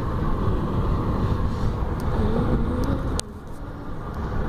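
Steady road and engine rumble inside a moving car. About three seconds in there is a single sharp click, and the rumble drops noticeably for about a second before it comes back.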